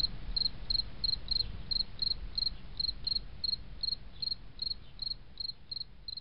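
A cricket chirping in a steady rhythm, short high-pitched chirps about three times a second, over a faint low rumble.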